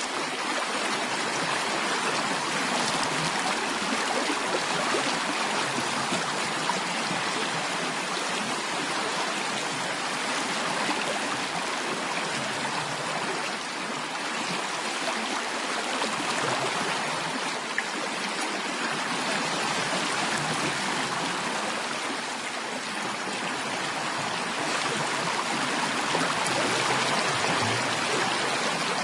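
Steady sound of flowing water, like a running stream, an even rushing noise with no breaks or distinct splashes.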